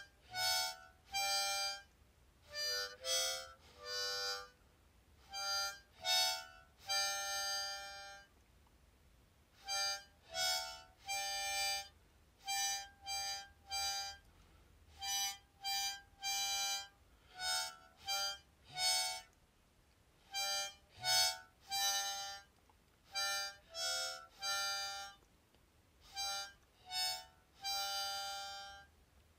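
Background music: a slow instrumental tune of short held chords, one after another with brief gaps between them.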